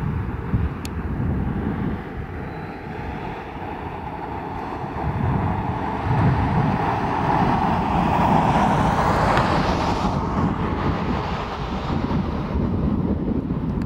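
Dust-storm wind buffeting the microphone, a steady low rumble. It swells into a louder, hissier gust from about six seconds in that drops away at about ten seconds.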